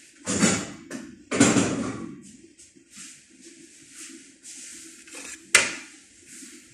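Kitchen handling noise: two heavy bumps in the first second and a half and a sharp knock near the end, close to the microphone. Under them runs a steady hiss of onions sautéing in a pan, with a low hum.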